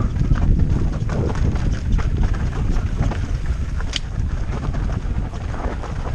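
Mountain bike riding over a rough dirt trail, with the tyres and frame rattling and knocking over rocks and roots. Wind buffets the microphone throughout.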